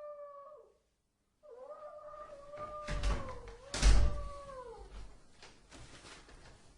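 A cat meowing: a short meow at the start, then a long drawn-out one. Two heavy thumps sound during the long meow, about three and four seconds in, the second the louder.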